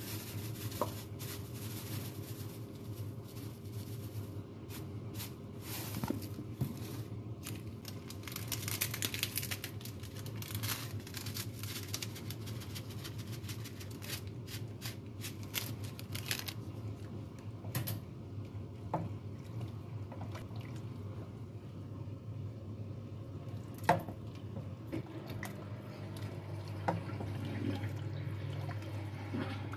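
Soup simmering in a stainless steel pot, with a dense run of crackling in the middle as a seasoning packet is opened and emptied into it, and a wooden spoon stirring and knocking against the pot near the end. A steady low hum runs underneath.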